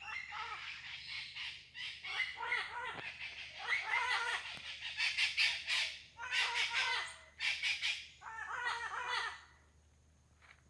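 Parrots squawking in a run of harsh, repeated calls, then falling quiet near the end.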